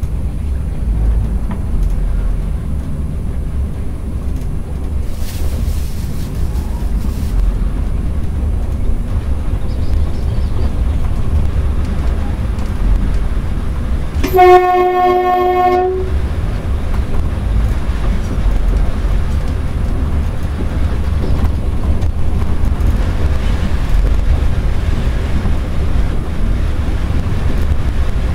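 ED9M electric train running along the line, heard from the driver's cab: a steady low rumble of wheels and running gear. Midway, the train's horn sounds once for about a second and a half.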